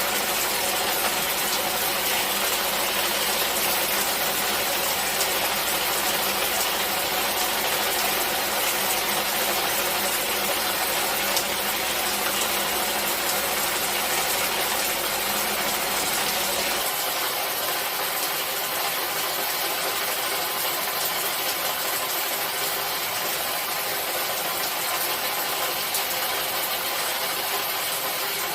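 Steady hiss of falling rain, dense and even, with a low rumble underneath that drops away about seventeen seconds in.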